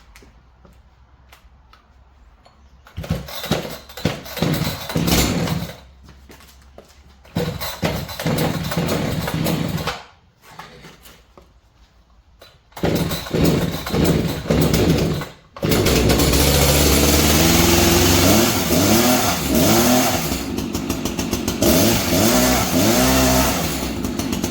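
Gas chainsaw being pull-started: three short bursts of engine noise die away before it catches about sixteen seconds in, then runs and revs up and down with its newly fitted chain.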